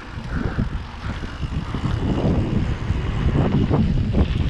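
Mountain bike running down a rough dirt trail: a rumble of tyres on the ground and the bike rattling over bumps, with wind buffeting the microphone. It gets louder about two seconds in.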